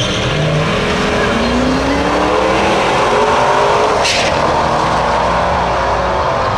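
Two drag cars launching off the line and accelerating hard down the strip. Their engine notes climb steadily in pitch and drop back at gear changes.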